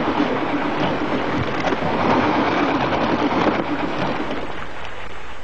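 Cartoon storm sound effect: a gust of wind rushing through a room in a steady loud rush that eases slightly late on and cuts off abruptly just before the end.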